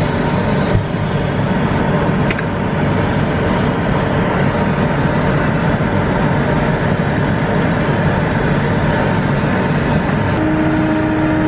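A large farm machine's diesel engine running steadily under load, a dense, even rumble. Near the end a steady tone comes in over it.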